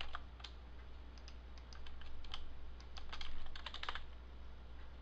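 Computer keyboard keys and mouse buttons clicking as Blender shortcuts are pressed: scattered single clicks, with a quick run of clicks about three to four seconds in.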